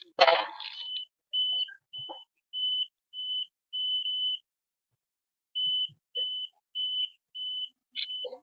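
Satellite finder meter beeping a steady high tone in short beeps, about two a second, with a break of about a second midway, as the dish is fine-tuned and the meter tracks the signal strength. A knock sounds just after the start as the dish is handled.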